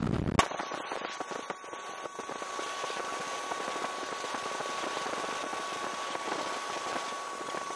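Speedboat engine and rushing wind played back at five times speed, heard as a steady high whine over a hiss. It starts with an abrupt click about half a second in, where the low rumble cuts off.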